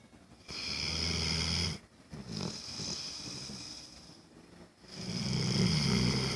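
Snoring: three long snores a couple of seconds apart, the first and last the strongest.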